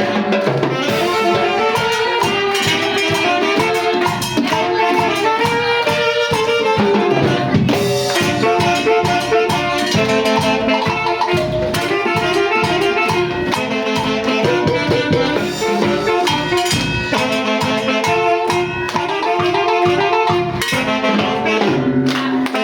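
Brass band playing: horns hold the melody over a steady drum beat.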